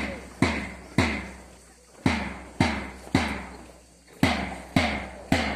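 A drum beaten in groups of three strokes about half a second apart, each group followed by a short pause, each stroke ringing out and sinking in pitch. The beat keeps time for students marching in step.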